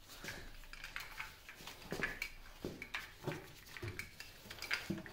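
Irregular light metallic clinks and ticks of a multi-tool working the socket head cap screw that holds a lathe's metal belt cover.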